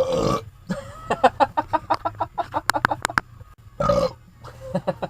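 A man burping while driving: a loud belch at the start, then a long stuttering, croaking run of quick pulses, and a second loud belch about four seconds in. A steady low car-cabin hum runs underneath.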